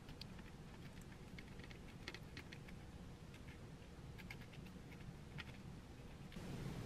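Metal spoon spreading tomato sauce over a tortilla on a plate: faint, irregular light taps and clicks of the spoon against the tortilla and plate.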